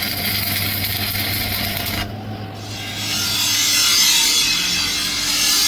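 Power tool grinding steel: a continuous abrasive hiss over a motor hum. It dips briefly about two seconds in, then bites in louder and harsher.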